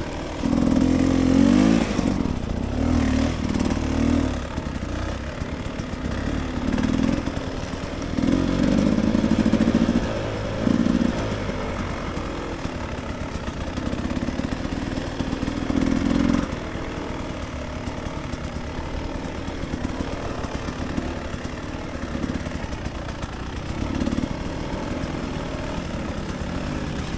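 Dirt bike engine running at low speed, the throttle opened in repeated short bursts of a second or two and falling back to a low steady run between them.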